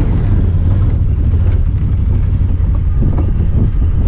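Honda Talon 1000R side-by-side's parallel-twin engine running steadily under way, with wind rush on the microphone and a few short knocks and rattles.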